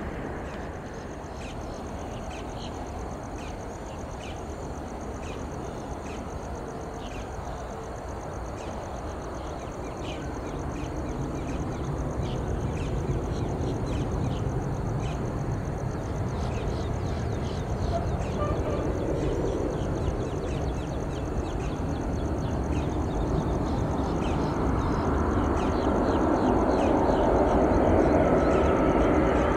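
Jet airliner engines: a low rumble that grows steadily louder through the second half as the aircraft comes closer, with faint short high chirps scattered over it.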